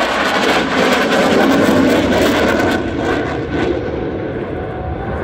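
F-22 Raptor's twin jet engines making loud jet noise as it flies past; the noise is rough and strongest for about three seconds, then fades as the jet moves away.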